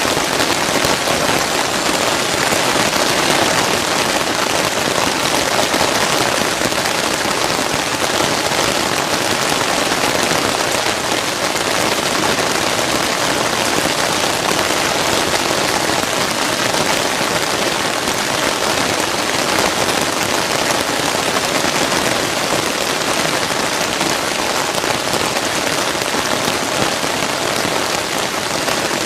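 Rain falling steadily, an even, unbroken hiss of rain striking surfaces.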